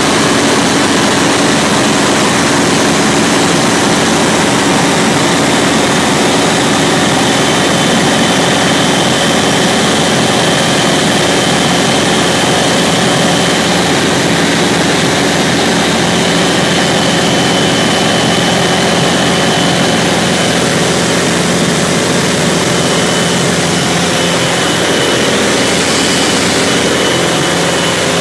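Cabin noise of a Grumman AA-1 light plane in cruise: its 108 hp four-cylinder Lycoming O-235 piston engine and propeller running steadily, heard loud from inside the cockpit, with a thin high whine held over it.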